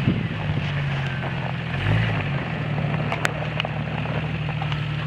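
Lifted Jeep Cherokee XJ's engine running under load in the snow, revving up at the start and again about two seconds in. A couple of sharp clicks a little after three seconds.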